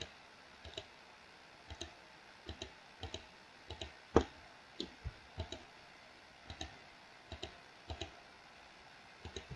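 Computer mouse button clicking at an irregular pace, single clicks and quick pairs, the strongest a little past the four-second mark: shift-clicking to pick items one after another.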